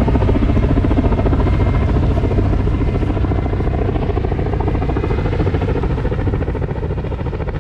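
Logging helicopter overhead: the rapid, steady chop of its rotor over a deep drone, slowly fading.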